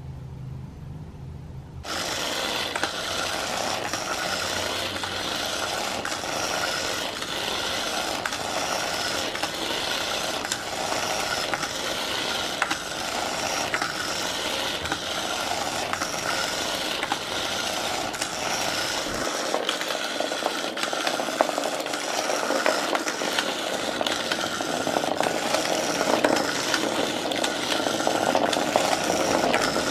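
Battery-powered electronic snake toy running around the plastic track of a Turbo Scratcher. Its motor gives a continuous rattling buzz, starting suddenly about two seconds in.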